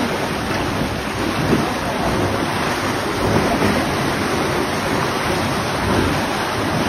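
Muddy floodwater rushing and churning through a concrete sluice gate: a loud, steady rush of water.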